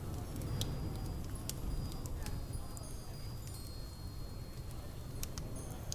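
Layered room-ambience soundscape: a steady low rumble with scattered sharp clicks and brief high tinkling tones.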